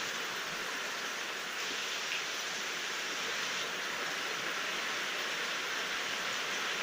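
Steady rain falling without thunder, an even hiss that holds at one level throughout.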